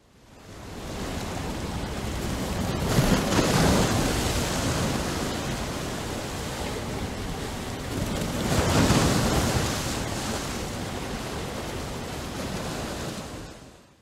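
Ocean surf: a steady wash of breaking waves that fades in, swells twice and fades out at the end.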